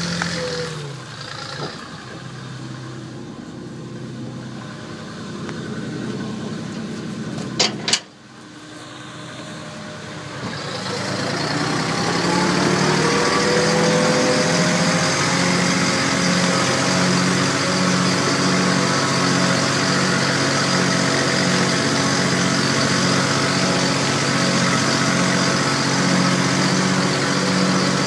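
Tractor diesel engine running, its pitch sinking about a second in. About eight seconds in there are two sharp clicks; a couple of seconds later the engine comes up, its pitch rising, then runs steadily with a regular throb.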